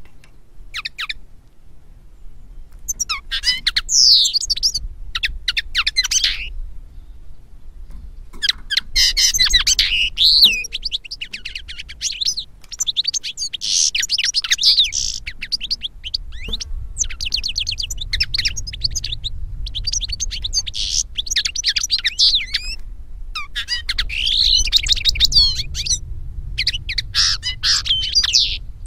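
Finch song from a goldfinch-versus-linnet song recording: European goldfinch and common linnet phrases of rapid, high twittering, trills and chirps, each lasting a few seconds with short pauses between them.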